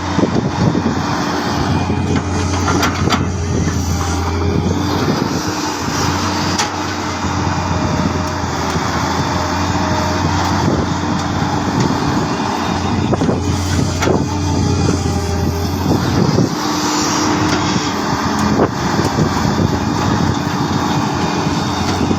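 Volvo wheel excavator's diesel engine running steadily at working speed, with scattered knocks and clanks.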